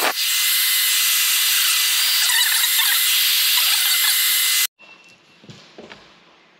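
Handheld hair dryer blowing hot air onto a car's rear badge to soften the adhesive: a loud, steady rush of air with a thin high whine. It is switched off suddenly about four and a half seconds in, followed by faint small handling sounds.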